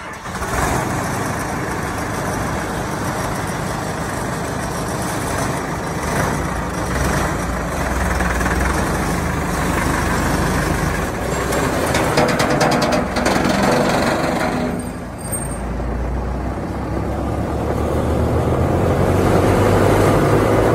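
Morbark Hurricane 18 brush chipper's engine running steadily just after starting, then speeding up over the last few seconds with a rising whine.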